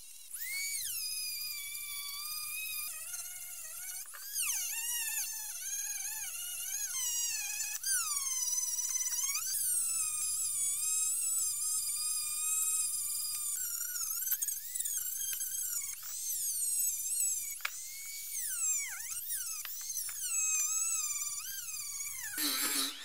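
Handheld electric rotary tool running a small steel wire brush bit against the steel of a food mincer's blade and body: a high-pitched motor whine whose pitch keeps dipping and recovering as the bit is pressed onto the metal and eased off, falling away near the end.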